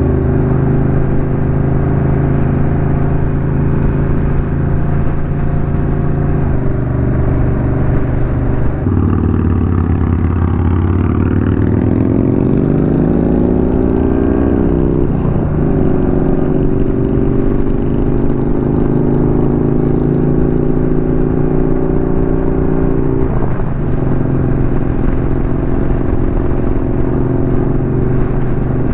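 Honda Rebel 1100 DCT's 1084 cc parallel-twin engine pulling steadily under way. Its pitch drops about a third of the way in, then rises smoothly as the bike accelerates. The tone breaks sharply at shifts of the dual-clutch gearbox about halfway through and again near the end.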